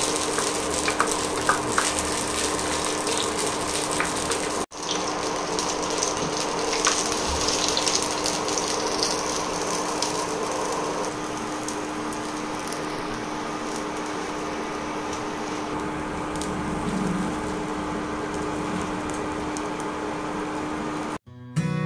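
Pork mesentery deep-frying in hot oil in a stainless pot: a steady sizzle of bubbling oil with small crackles and a steady hum underneath. The sizzle drops out briefly about five seconds in, and guitar music cuts in at the very end.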